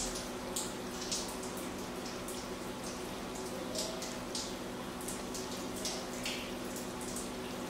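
Quiet room tone: a faint steady hum with scattered faint short high ticks.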